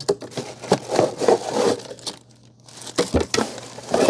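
A hair dryer's retail box and packaging being opened by hand: crinkling and tearing with knocks from handling, pausing briefly about two seconds in.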